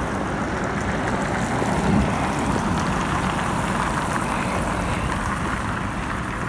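Steady engine and road noise heard from inside a moving vehicle, with a slight swell about two seconds in.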